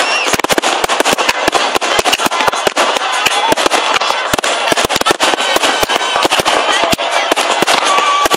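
Aerial fireworks shells bursting in a dense, irregular barrage of sharp bangs, several a second, with a steady hiss between them.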